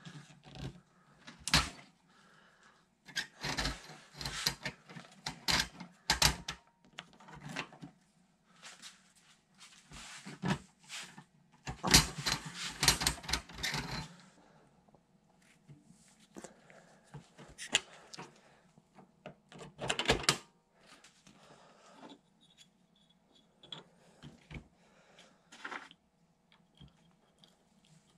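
Irregular metallic clicks, scrapes and knocks as the coil spring of a camper shell's spring lift support is worked back into its steel tube by hand with a small tool. A quick run of clattering comes around the middle, and a sharp knock a little later.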